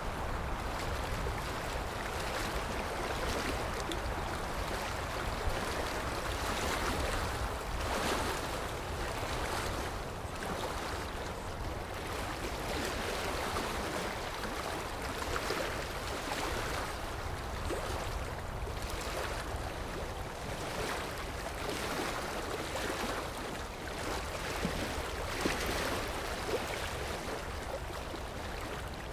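Sea waves washing in: a continuous rush of surf with a low rumble underneath, swelling now and then as waves break.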